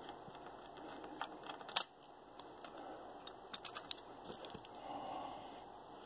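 Light clicks and scrapes of a Phillips screwdriver backing out the screw of a Dell Latitude D630's memory cover, and the cover being lifted off; one sharper click about two seconds in, then a run of quick light clicks around the middle.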